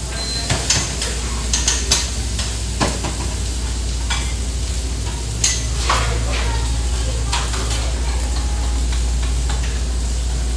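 Food sizzling on a short-order flat-top grill, with sharp clatters of a spatula and plates during the first six seconds, over a steady low hum.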